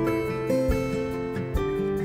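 Background music led by acoustic guitar, with held notes that change in steps and a low thump about once a second.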